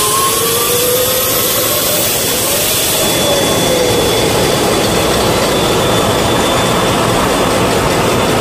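Ship's main diesel engine running just after start-up. A high turbocharger whine climbs in pitch over the first couple of seconds as the engine comes up to speed, then settles into a loud, steady run.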